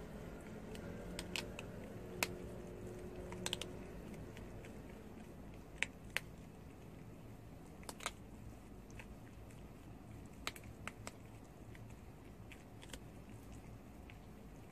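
Prairie dog biting and chewing a green food stick held in its paws: a dozen or so sharp, irregular clicks of its teeth on the food.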